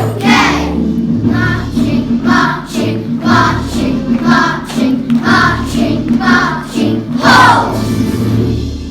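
Children's choir singing a song to a backing track, in a steady rhythm of sung syllables about one a second. The last note fades out at the end.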